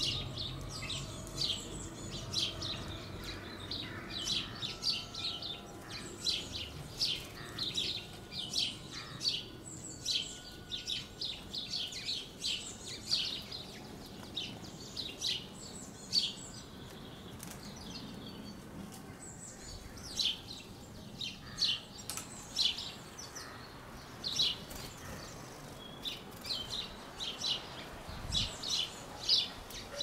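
Small songbirds chirping: a steady, irregular stream of short, high chirps, often several a second.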